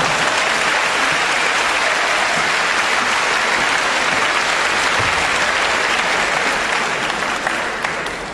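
Crowd applauding steadily, dying away near the end.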